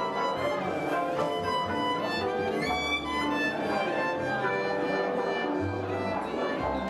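Background music with a violin playing a melody over accompaniment.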